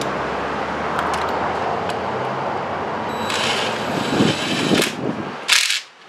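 A steady fan-like whir with a faint low hum, under a few light clicks as a spark plug socket and extension are handled in the plug well. A short loud rush of noise comes near the end, then the sound cuts off abruptly.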